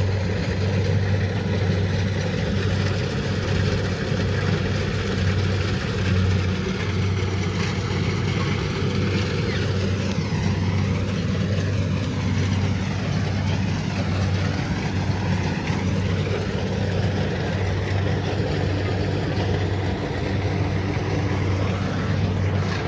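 Kubota DC70 Pro combine harvester running steadily under load, its diesel engine giving a constant low drone over the noise of the machinery.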